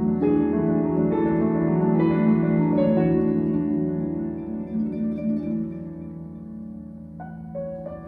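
Concert harp playing a flowing run of plucked notes, with a Steinway concert grand piano beneath it. The notes thin out and soften in the second half, then fresh notes come in near the end.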